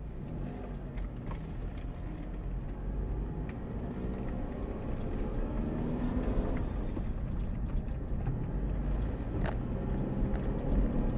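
A car driving along a street, with a steady low rumble of engine and road noise and a few faint ticks.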